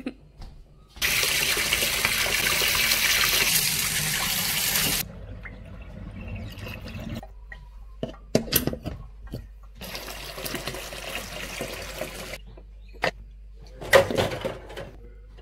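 Kitchen tap running hard into a stainless steel sink for about four seconds, then quieter running water with sharp clinks and knocks of the metal strainer basket and of dishes in soapy water.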